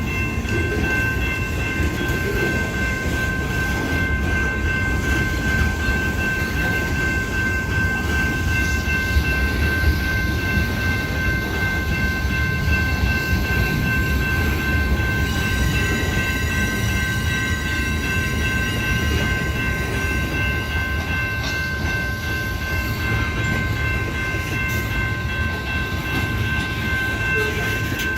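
Union Pacific freight train running, a steady low rumble with a steady high-pitched whine over it.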